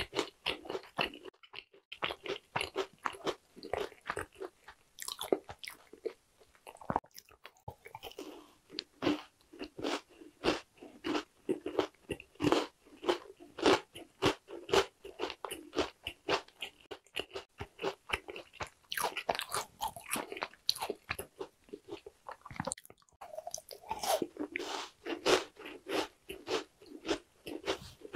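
A person chewing glazed Korean honey cookies (mini yakgwa) close to the microphone: dense, quick crunching and chewing clicks, with a few brief pauses.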